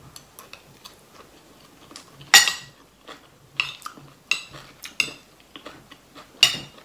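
A spoon clinking against a large ceramic soup bowl while eating: about five clear, ringing clinks, the loudest a little over two seconds in, with fainter taps between.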